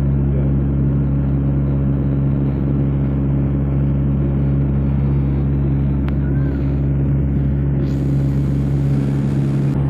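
Engine drone inside a passenger aircraft's cabin: a loud, steady low hum made of several held tones over a noisy rush.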